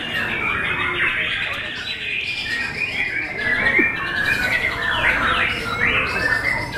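White-rumped shamas (murai batu) singing in a contest class, a dense, unbroken stream of quick overlapping chirps and whistled phrases.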